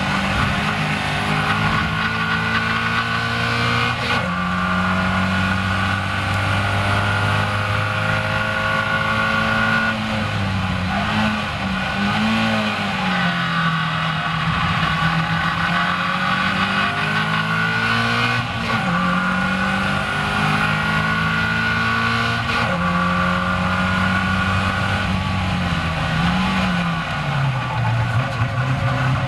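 Caterham Seven race car's engine heard from the open cockpit on track, its pitch rising and falling in steps through gear changes. It dips and swells briefly as the car brakes and changes down for a slow corner, then pulls away again, with wind and road noise throughout.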